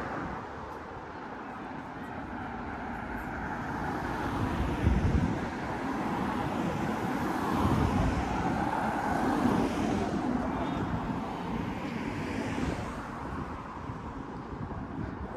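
City road traffic: a steady hum of car tyres and engines that swells in the middle as a car drives past. A few short low thumps sound over it, the strongest about five seconds in.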